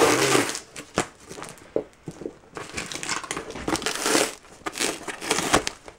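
Plastic wrap crinkling and newspaper packing crumpling in irregular bursts as a capuchin monkey rummages inside a cardboard box, with sharp knocks and scrapes against the cardboard.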